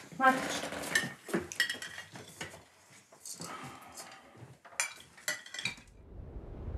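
Spoons clinking against soup plates at a table, a string of sharp clinks, some ringing briefly. Near the end the clinking stops and a low steady rumble takes over.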